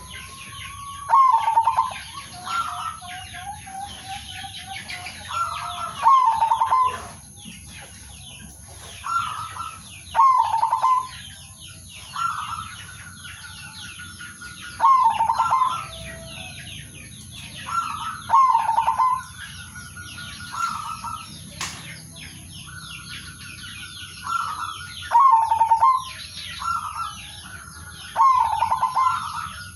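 Male zebra dove (perkutut) cooing, repeating a short phrase of quick notes about every three seconds, over a steady background of many small birds chirping.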